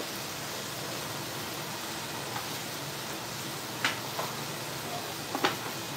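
Steady hiss and bubbling of cooking on a gas stove: a pot of water at a rolling boil beside a pan of ground beef frying. A couple of faint taps near the end.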